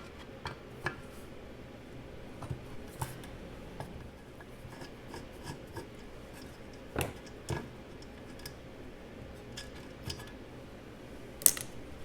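Scattered small metallic clicks and clinks of hand tools and loose metal parts as the blade tensioner of a Porter-Cable 7724 portable bandsaw is taken apart, with two louder clinks about seven seconds in and a sharp one near the end.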